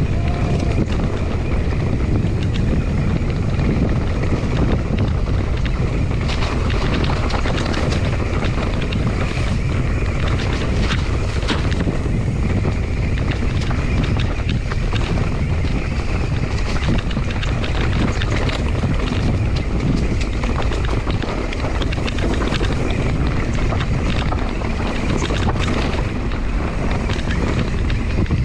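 Wind buffeting the microphone over the rumble of a mountain bike riding a bumpy dirt trail. Frequent small clicks and knocks come from the bike over the bumps.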